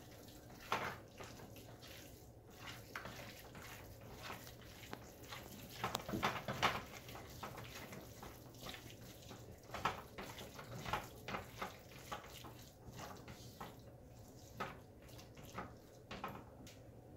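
Minced raw beef for kitfo being kneaded and turned by a gloved hand in a nonstick skillet: soft, wet squishing with scattered light taps against the pan, coming irregularly.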